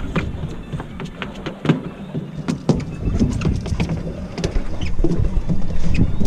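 Irregular sharp slaps and knocks from a freshly landed fish flapping against the boat, over a low rumble of wind on the microphone.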